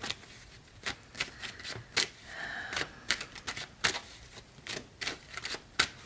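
A deck of tarot cards shuffled by hand, the cards flicking and slapping together in an irregular run of sharp clicks, a few a second.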